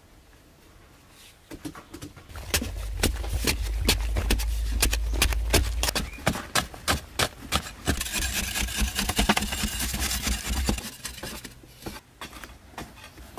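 Rapid strikes, a few a second, of a short-handled digging tool chopping into packed earth inside a narrow tunnel, muffled with a deep boom under them, along with loose dirt scraping and falling.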